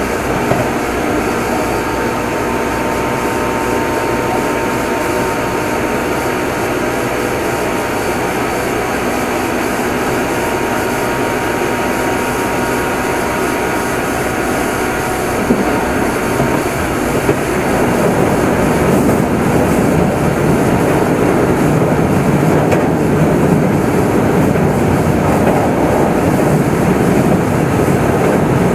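Meitetsu 6500 series electric train running: steady motor hum and wheel-on-rail rumble heard from motor car Mo 6461. Faint whining tones sound in the first half, and the running noise grows louder from about 17 seconds in.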